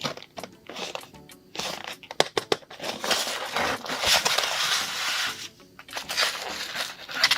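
Crunching and crinkling noises, with a run of sharp clicks and crackles, over background music.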